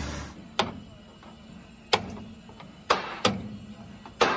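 Stick-welding arc crackle that stops a moment in, then five sharp hammer blows on a steel truck chassis rail at irregular intervals, each ringing briefly.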